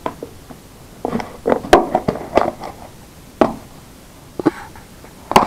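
Plastic tub being handled and its snap-on plastic lid worked off: an irregular series of sharp clicks and knocks, busiest from about a second in to halfway through, with single clicks later.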